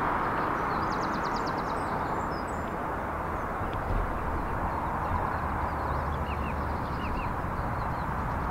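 Birds chirping over a steady rushing background hiss, with a rapid trill about a second in and a few short chirps later on.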